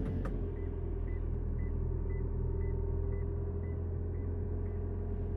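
Toyota Sienna's in-cabin reverse warning chime beeping faintly about twice a second with the shifter in reverse, over a steady low hum.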